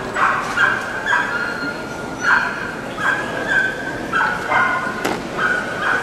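A dog yapping over and over in short, high-pitched barks, about two a second.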